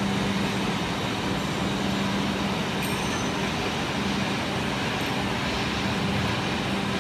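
Hydraulic four-roll plate bending machine running as it rolls a steel plate into a cone: a steady mechanical hum with a constant drone underneath.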